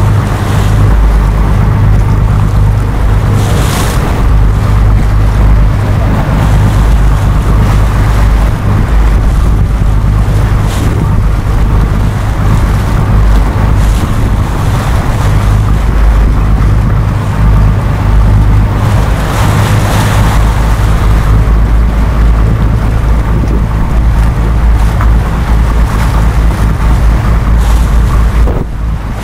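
Wind buffeting the microphone in a deep, steady rumble, over the rush of choppy water and waves alongside a sailing yacht. The hiss of wind and spray swells and fades every few seconds.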